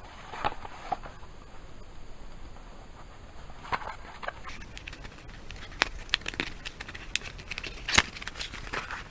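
Hands handling and opening a cardboard toy box: light taps, scrapes and crackly rustling of the cardboard, with a sharper knock about 8 seconds in.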